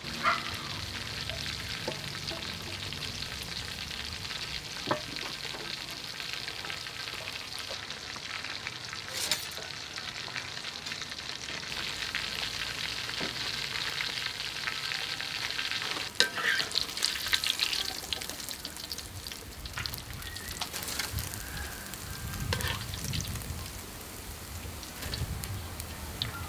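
Salmon fins deep-frying in a wok of hot oil: a steady bubbling sizzle. From about halfway on it is broken by scattered clicks and knocks from stirring.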